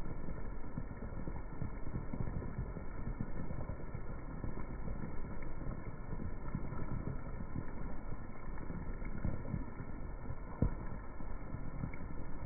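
Heavy rain falling on wet brick paving, slowed down in slow-motion playback, so the patter becomes a dense, low rumble of soft thuds. One louder thud comes about ten seconds in.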